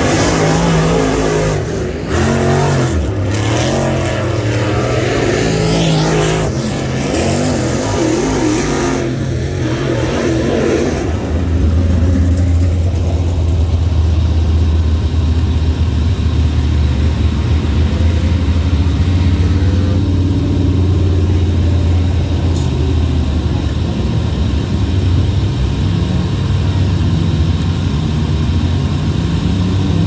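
Race car engines revving, their pitch rising and falling, for about the first eleven seconds. Then a steady, low engine drone holds with little change.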